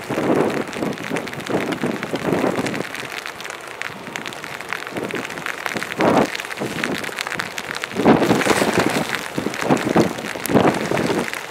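Wind gusting on the microphone in uneven surges, loudest about six seconds in and over the last few seconds, with rain falling and many small raindrop hits on the camera.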